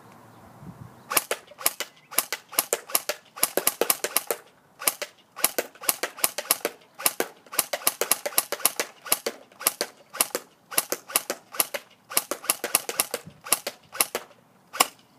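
Battery-powered SRC G36C airsoft electric gun firing semi-auto shots in rapid strings, each shot a sharp snap, with short pauses between strings.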